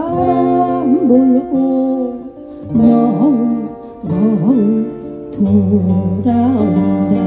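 A song with strummed acoustic guitar accompaniment and a melody line that slides and wavers in pitch, phrase by phrase, with short breaks between phrases.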